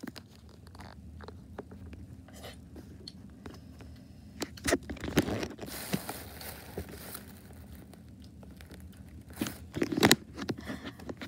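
Handling noise of toy baby dolls and plastic toy bottles close to the microphone: scattered clicks, knocks and rustling, with louder clusters of knocks about five seconds in and again near the end.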